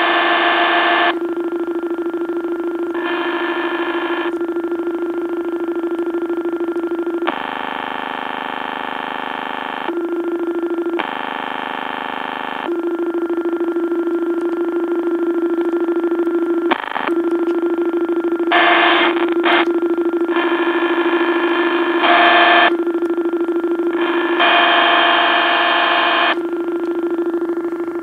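Circuit-bent electronic keyboard holding one steady mid-pitched drone, over which blocks of harsh, glitchy buzzing tones switch on and cut off abruptly every second or two.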